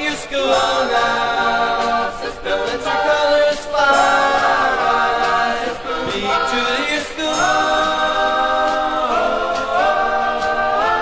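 Unaccompanied choir singing long held chords that move step by step to new chords.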